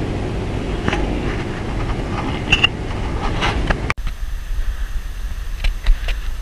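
Wind rumble and road noise on a bike-mounted action camera while cycling, with a few light clicks and rattles. An abrupt break about four seconds in leaves a thinner rumble.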